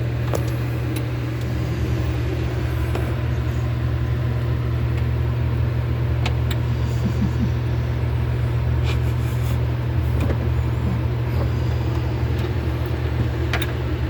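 Steady low mechanical hum with an even, unbroken level, and a few faint clicks.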